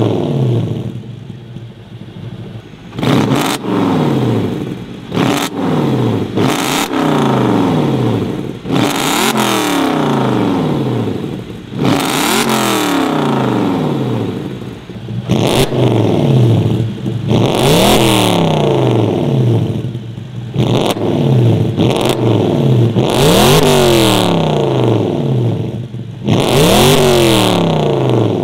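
Audi B6 S4's 4.2-litre V8 with its factory muffler replaced by straight stainless tubing, free-revved over and over at a standstill. There are about ten sharp blips, each climbing quickly and then falling back to idle.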